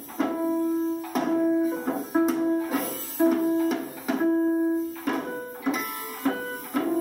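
A young child picking out single notes on an electronic keyboard: one held note roughly every second, mostly repeating the same few pitches, with a few sharp taps between them.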